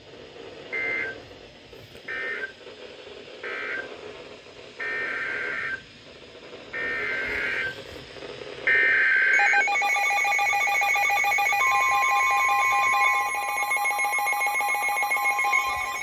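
NOAA Weather Radio SAME data bursts: three short, raspy two-tone bursts (the end-of-message code), then three longer bursts (the header of a new alert). About ten seconds in, the weather alert radios start sounding a loud pulsing electronic alarm, and a steady warning tone joins it a couple of seconds later.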